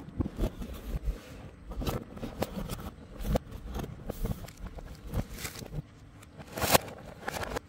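Cardboard box and clear plastic packaging tray of an LED light kit being handled as the lid is opened: irregular scraping, crinkling and light knocks, with the loudest sharp crackle about six and a half seconds in.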